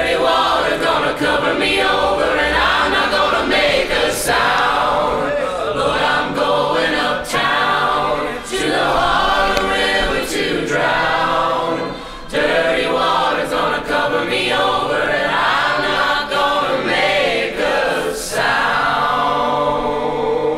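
Background music: a song of several voices singing together in choir style.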